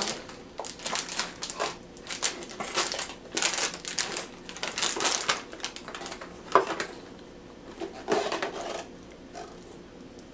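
Plastic packaging crinkling and rustling in irregular bursts as it is handled and pulled away from a toy box, with a couple of sharper knocks a little past the middle.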